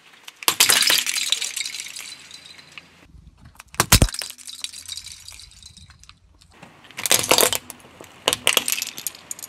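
Car tyre rolling over and crushing small hard plastic objects, a puzzle cube among them: a burst of cracking and crunching about half a second in, one sharp loud snap at about four seconds, then more bursts of cracking near the end.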